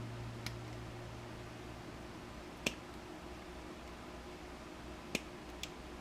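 Four small sharp clicks, the loudest about midway, from hand tools picking at the copper windings of a small electric screwdriver motor, over a low steady hum.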